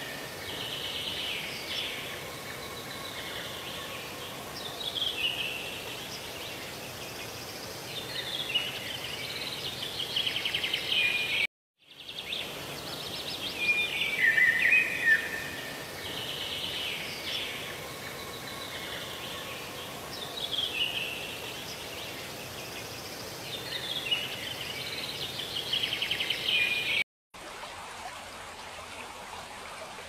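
Birds chirping and singing in repeated trilled and falling phrases over a steady rushing background. The sound cuts out for a moment about a third of the way in, and the same birdsong sequence then plays again as a loop. After a second brief cut near the end, a steady stream takes over with no birdsong.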